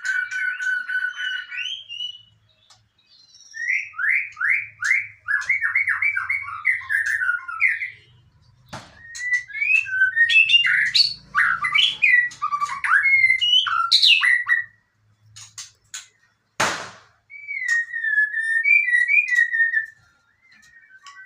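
White-rumped shama (murai batu) singing: a held whistle, then a fast run of repeated falling notes, then varied warbling and chattering phrases. A single sharp click sounds near the end.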